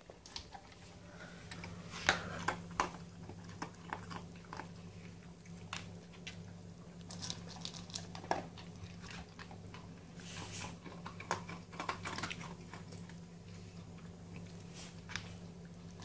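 A dog crunching dry kibble, taking the pieces from a metal bowl one at a time, in irregular sharp crunches. A faint steady low hum runs underneath.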